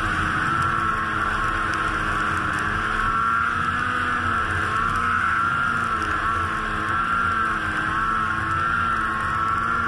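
Ski-Doo Freeride 850 snowmobile's two-stroke engine running steadily at speed, its pitch wavering slightly up and down with the throttle.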